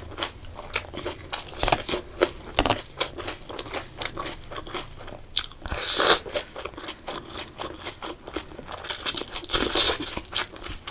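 Close-up eating sounds: a person biting and chewing crisp food with repeated crunches and wet mouth clicks, with two louder hissy stretches about six seconds in and again near the end.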